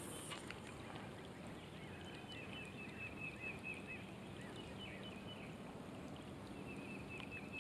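Light rain falling on a pond's surface, a faint steady hiss, with faint high-pitched trills repeating in the background.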